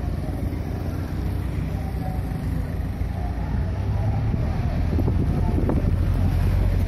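Low, steady rumble of a car driving along a dirt street, engine and tyre noise heard from inside the car, getting louder over the last few seconds.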